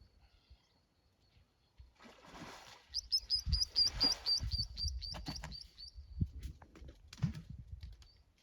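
A bird singing a fast run of about a dozen identical sharp, high chirps, about four a second, over water splashing and low thumps from elephants bathing.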